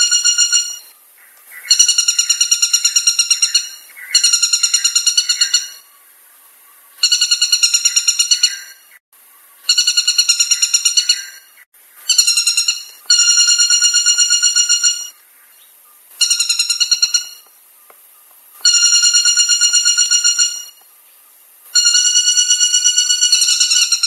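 White-bellied woodpecker calling: loud runs of rapid ringing notes, each run one to two seconds long, repeated about ten times with short pauses between.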